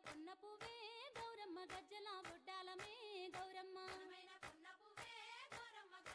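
Faint Bathukamma folk song: a woman's voice singing over music, with hand claps keeping a steady beat of about three a second, the dancers clapping in time.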